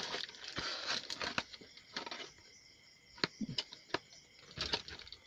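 Cardboard box and plastic packaging being handled: scattered rustles, light taps and knocks, quieter in the middle.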